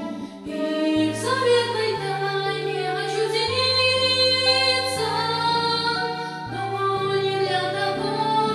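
A boy singing a serenade in Russian over instrumental accompaniment, his melody wavering with vibrato above held bass notes that change every second or two.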